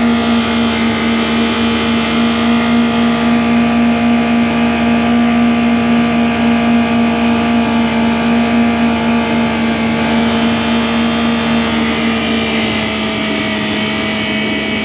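Yamaha VX110 WaveRunner's four-cylinder four-stroke engine held at high revs in a steady, even drone, easing slightly near the end. It is being load-tested after its cooling passages were cleared of salt-water corrosion that had made it overheat.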